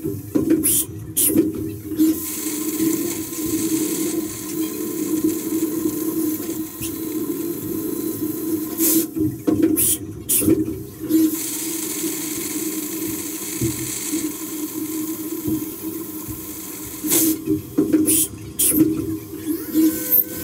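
Flood coolant splashing and spraying inside a Hardinge CNC milling machine's enclosure over a steady machine hum. The spray hiss drops out briefly a few times.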